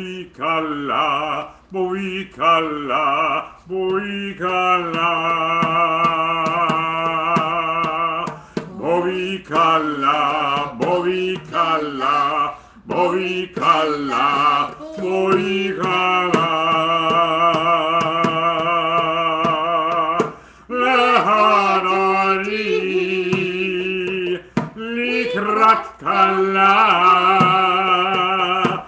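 A man and a woman singing a Hebrew Shabbat melody together, with held notes and vibrato and short breaths between phrases, over light taps.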